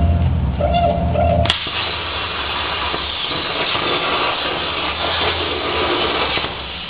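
Background music for about a second and a half, then it cuts abruptly to a CNC plasma torch cutting stainless steel sheet: a steady, rushing hiss of the arc and its air.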